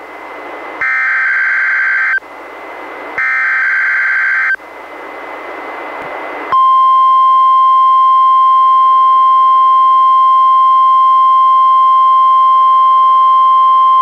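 NOAA Weather Radio SAME alert header, played by a weather radio receiver. Two buzzy, warbling digital data bursts, each about a second and a half long and a second apart, with radio hiss between them. About six and a half seconds in, the 1050 Hz warning alarm tone starts: a single steady, loud high beep held to the end, sounding a required weekly test of the alarm.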